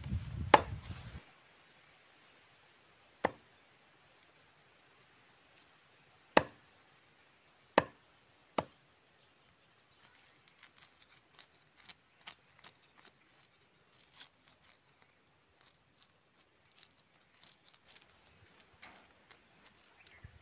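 A large cleaver-like knife chopping through a fish onto a wooden log block: five sharp chops spread over the first nine seconds. From about ten seconds in, a run of faint, quick scrapes and ticks follows as the blade scales the fish.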